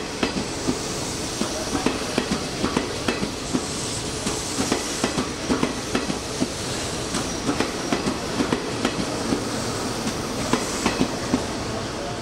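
A Hanshin Railway electric train running through the station, its wheels clicking over rail joints and points, several clicks a second, over a steady rolling rumble.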